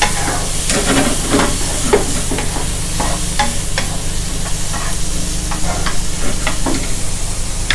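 Shrimp and chopped garlic sizzling in hot oil in a nonstick frying pan, with a steady hiss. A wooden spatula stirs them, scraping and tapping against the pan at irregular moments.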